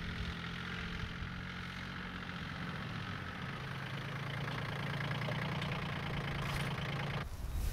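Kioti CK22 compact tractor's small three-cylinder diesel engine running steadily as the tractor drives across the field, growing a little louder midway as it approaches. The engine sound stops abruptly near the end.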